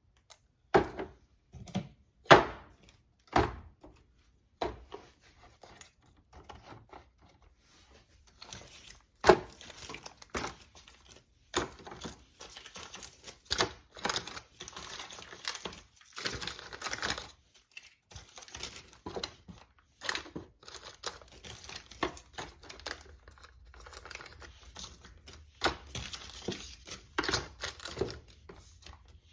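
Groceries and packaging being handled and put away: plastic packaging crinkling, with irregular knocks and clunks as items are set down.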